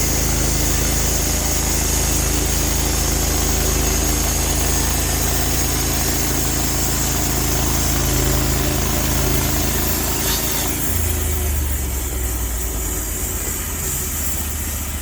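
A portable sawmill's engine runs steadily. About ten seconds in, it drops to a lower, slower idle and the high hiss above it fades away.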